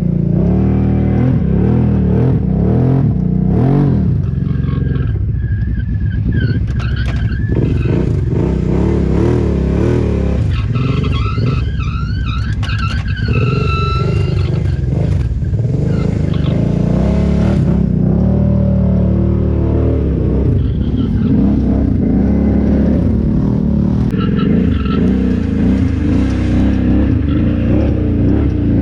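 ATV engines running and revving as the quads ride, the engine pitch rising and falling over and over.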